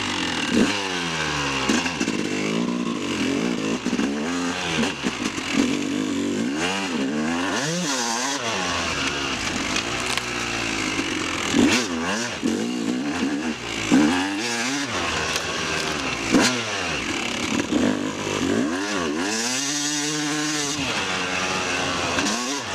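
Yamaha YZ250 two-stroke dirt bike engine revving hard and dropping back over and over as it is ridden, its pitch climbing and falling every second or two, with a few sharp knocks along the way.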